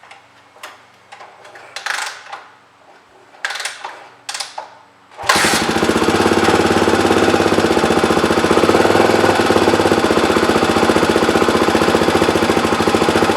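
A few scattered knocks and clatters, then the 1996 Honda XR250R's single-cylinder four-stroke engine fires about five seconds in and runs steadily with a fast, even pulse. It is warming up so the oil level can be checked.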